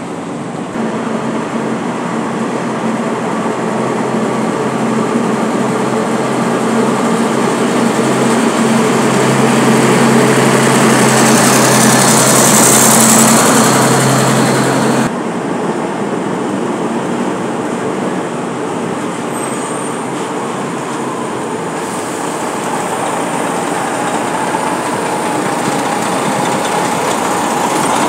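Heavy dump trucks running and moving past at close range: a broad engine and tyre rumble, with a steady low hum that stops abruptly about halfway through and a hiss that swells and fades just before it.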